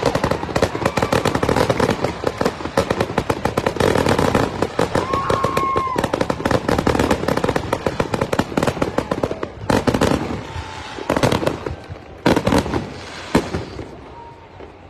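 Fireworks display: a rapid barrage of exploding shells and crackling, thinning about ten seconds in to a few single loud bangs a second or so apart, then dying down near the end.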